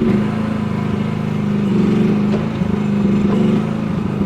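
Chinese mini excavator's small engine running steadily, a small-engine drone with a few faint knocks from the machine working.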